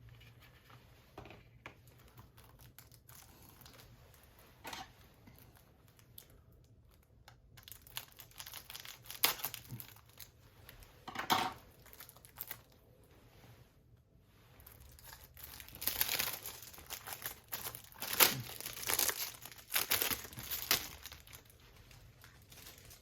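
A Blu-ray case and its cardboard slipcover being handled and slid apart: scattered bursts of plastic and card rustling, busiest in the middle and again in the latter part.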